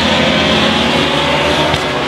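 Racing motorcycles passing through a corner at high revs, the engine note climbing gently as they accelerate.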